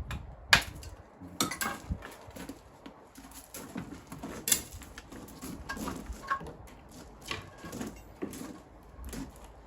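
Irregular sharp knocks and clinks of stones and hand tools being handled during stone wall building, the loudest about half a second and four and a half seconds in.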